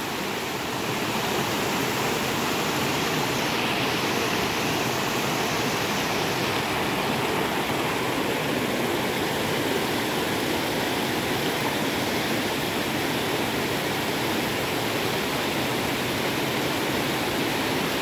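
Water of a rocky stream and small waterfall rushing and splashing over stones, a steady even rush.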